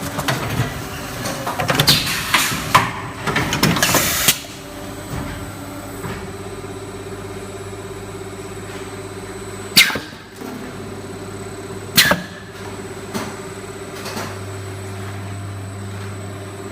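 Blow molding machine running in a workshop: a steady machine hum throughout, with clattering and hissing for the first four seconds, then two sharp bangs about two seconds apart near the middle.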